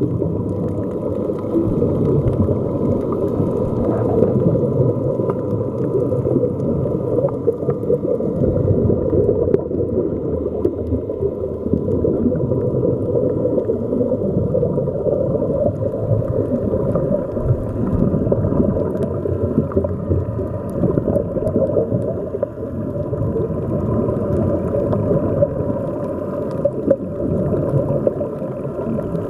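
Underwater ambience: a dense, steady low rumble and gurgle of water and rising air bubbles, muffled as heard underwater, with a faint steady hum in the background.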